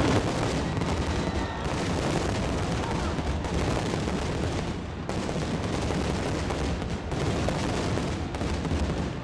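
Fireworks display going off: a rapid, unbroken barrage of bangs and crackles.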